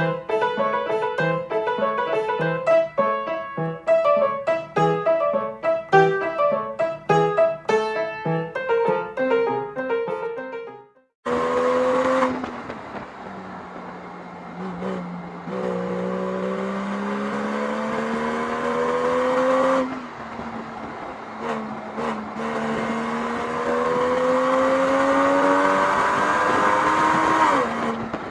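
Piano-like background music for about the first ten seconds. After a brief gap, the rebuilt Porsche 996's 3.6-litre M96 flat-six engine runs under acceleration, its pitch rising slowly, dropping back at a gear change, then rising again before easing off near the end.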